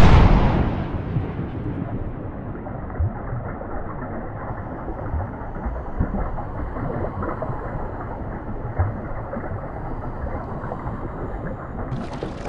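A deep rumbling wash of noise that fades from a loud start and then holds steady, with a few soft thumps: the slowed-down sound of a .22 bullet striking the water in a glass aquarium.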